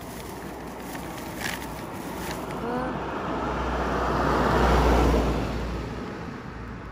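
A car passing by on the road: tyre and engine noise that swells to a peak about five seconds in and then fades away.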